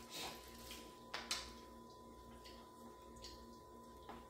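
Quiet room tone with a steady faint hum and a few soft clicks, the sharpest about a second in.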